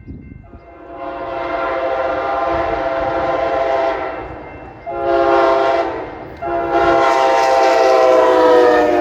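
Train horn sounding a multi-note chord in three blasts: long, short, long. The last blast drops slightly in pitch near its end.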